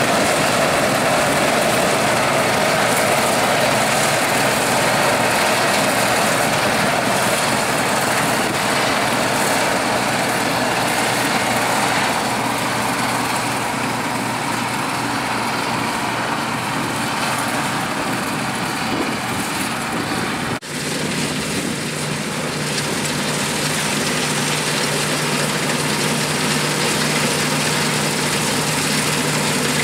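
Bizon Rekord Z058 combine harvester working in oats: its diesel engine and threshing machinery run with a steady drone that eases slightly as the machine moves away. About two-thirds of the way in, the sound breaks off for an instant and then resumes with a steadier low hum underneath.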